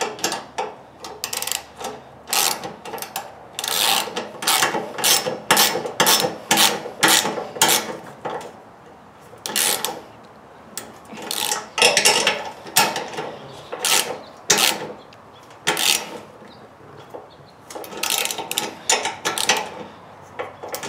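A socket ratchet clicking in quick back-and-forth strokes as it snugs up the 12 mm clamp bolts of a generator's wheel-kit handlebar. The clicking comes in runs with short pauses between them.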